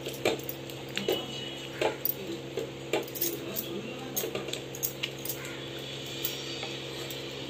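Steel spoon scraping and clinking against a metal kadai as wheat vermicelli is stirred into boiling water with vegetables, in irregular clinks about one or two a second, over a steady low hum.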